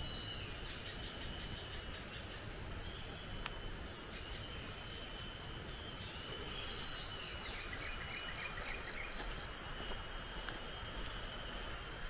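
Forest insects calling: trains of short, high, rhythmic chirps, one of them at about five pulses a second in the middle, over a low steady background hiss.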